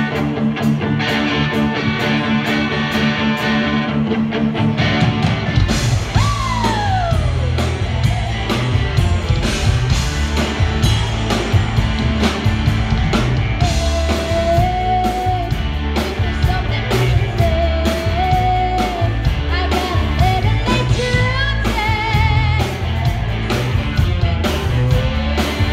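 Live rock band playing: electric guitar alone for the first five seconds or so, then drums and bass come in with a long falling slide in pitch. A woman's singing voice joins about halfway through.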